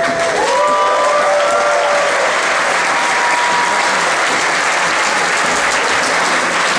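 A large crowd applauding, with a few voices cheering over the clapping in the first two seconds.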